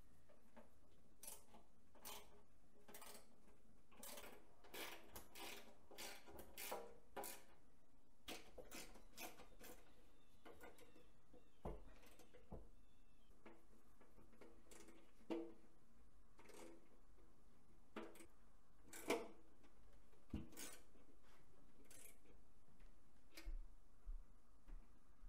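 Irregular light clicks and taps of small hard parts being handled on a workbench, with a few sharper knocks now and then.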